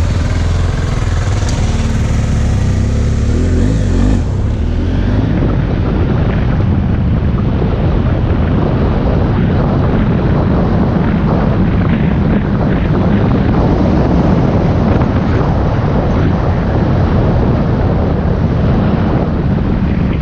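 BMW F800 motorcycle's parallel-twin engine running steadily, then pulling away about four seconds in and running under way, with wind rushing over the microphone.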